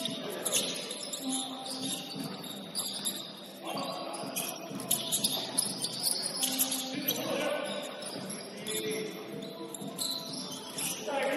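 Basketball shoes squeaking on a gym court during play: high squeals that come and go, with the ball bouncing between them.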